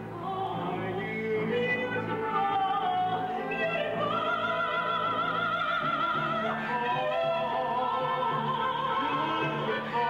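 Theatre orchestra accompanying operatic-style musical-theatre singing. From about four seconds in, a voice holds a long high note with wide vibrato for about two and a half seconds, then drops as the melody moves on. The sound is thin and dull at the top, as on an old audience recording.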